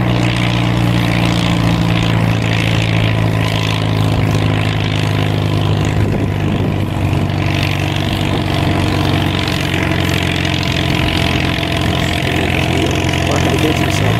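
Antique tractor engine running steadily under load while pulling a sled, its low note holding an even pitch throughout.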